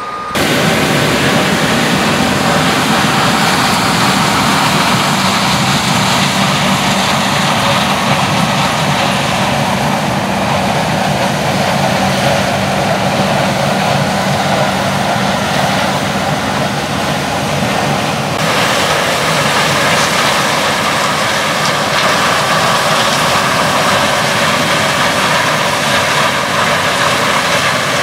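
Combine harvester and tractor diesel engines running steadily while corn is harvested, a loud, even machinery drone. The sound shifts in character about two-thirds of the way through.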